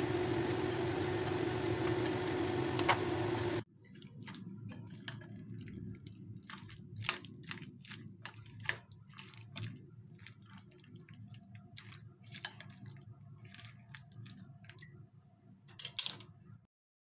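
A steady mechanical hum from a nearby appliance over chopsticks stirring shredded cabbage in a glass bowl; after a sudden cut about three and a half seconds in, it gives way to quieter wet squishing and light clicks of dressed cabbage being mixed, which stops abruptly about a second before the end.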